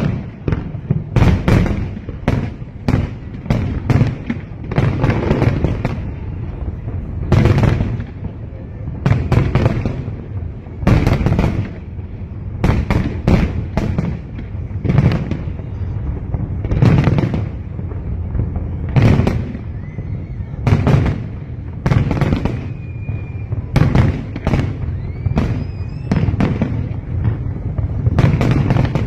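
Aerial fireworks display: a rapid, irregular string of shell bursts, deep booms and sharp cracks, often overlapping and echoing. A few thin whistling glides come about two-thirds of the way through.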